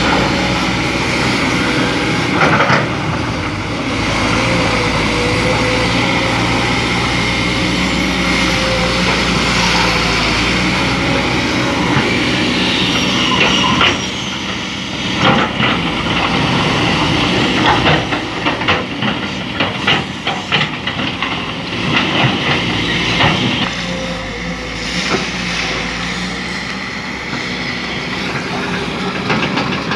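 Excavator at a sand mine, its diesel engine running steadily. From about halfway through, irregular clattering knocks from the machine's work in the sand and rock sound over the engine.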